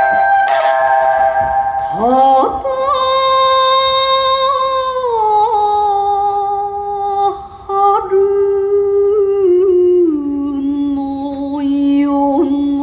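A single voice sings long held, ornamented notes without words, stepping down in pitch in stages, in Japanese-style performance music.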